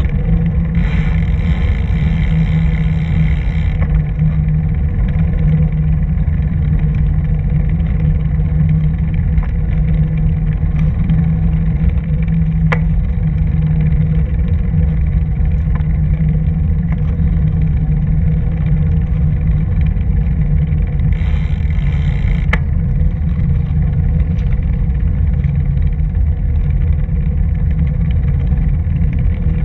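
Steady low rumble of wind and tyre noise on a camera moving along a paved path, with two brief spells of hiss, about a second in and again around twenty-one seconds, and a couple of sharp clicks.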